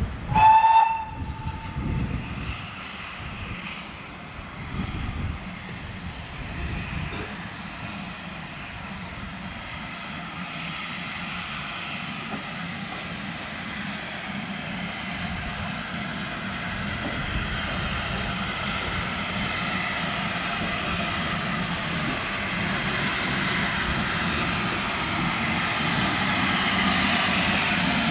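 Steam locomotive giving one short whistle blast just after the start, then a few exhaust beats, then the train's running noise growing steadily louder.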